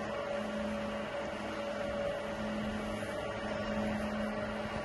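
Steady machinery hum from the drives of rotating biological contactor (RBC) units: a low held tone and a higher one over an even wash of running noise.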